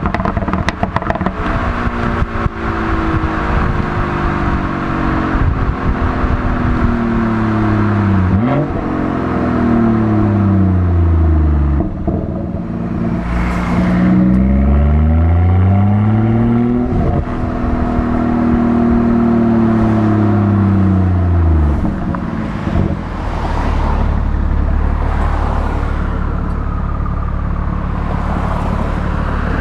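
BMW 440i's B58 turbocharged inline-six with the M Performance Power and Sound Kit, its exhaust note falling and rising in pitch as the revs drop and climb several times, with quick throttle blips. It then settles into a steady low idle for the last several seconds. A run of sharp crackles comes through in the first couple of seconds while the revs fall.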